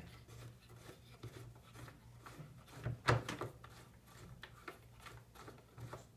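Mounting knob of an RF aligner turned by hand to tighten it onto a clamp's metal mounting plate: faint scattered clicks and rubs of fingers and parts, with a louder knock about three seconds in. A low steady hum lies under it.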